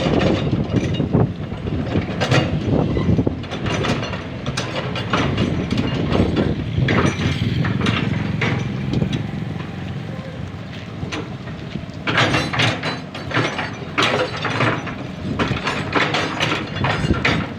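Excavator working: its diesel engine runs steadily under a string of sharp metallic clanks and knocks, which come thickest near the end.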